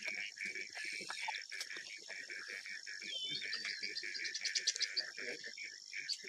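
Steady high-pitched chorus of calling insects and frogs, with a few curving bird whistles and a quick trill about four and a half seconds in.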